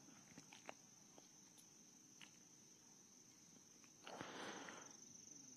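Near silence with a faint, steady, high-pitched cricket trill and a few faint ticks. A soft rustle comes about four seconds in.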